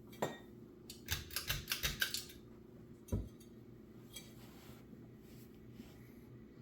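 Halsey ceiling fan's motor humming steadily, with a sharp click near the start, a rapid run of loud clattering clicks about a second in, and one more knock about three seconds in.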